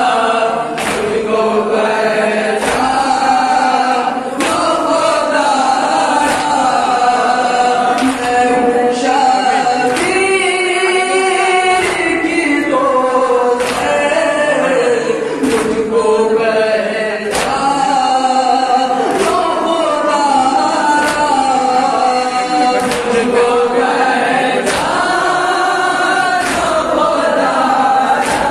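Male voices singing a noha, a Shia mourning lament, in unison: a lead reciter on a microphone with a group chorus joining in. Under the singing, sharp slaps of chest-beating (matam) keep a steady beat about once a second.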